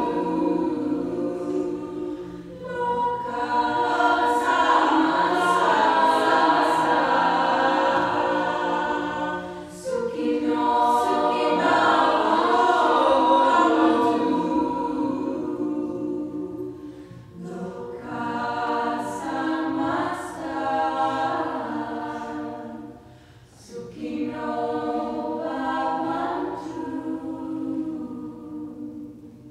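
Women's choir singing, in phrases broken by short pauses, the sound dying away near the end.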